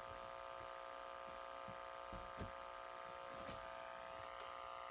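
Faint, steady electronic drone of several held tones, like a buzzing hum, from a weather radio tuned to NOAA Weather Radio station WNG522 while that transmitter is malfunctioning. A few faint clicks are heard.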